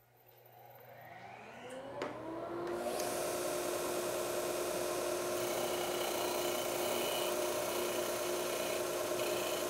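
Jet belt/disc sander combo's disc sander motor starting up, a whine rising in pitch over the first few seconds and then holding steady. From about three seconds in, a steady hiss of the abrasive disc sanding the edge of a round wooden base turned on a centering pin.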